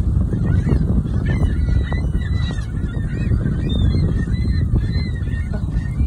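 A flock of gulls calling: many short, overlapping high cries, over loud wind buffeting the microphone.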